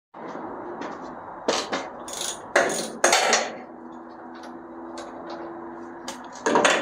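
Metal clanks and clinks of a socket wrench and bolt as the last engine mount bolt is worked free. There are a few sharp knocks between about one and a half and three and a half seconds in, and another near the end.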